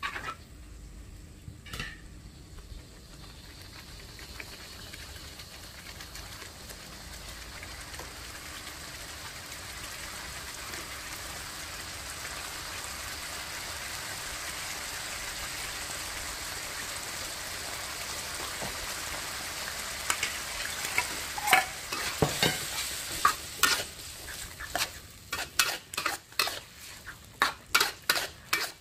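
Sauce sizzling and bubbling in a wok, a steady hiss that slowly builds. About twenty seconds in, a metal ladle starts scraping and clinking against the wok in quick, repeated strokes as the pan is stirred.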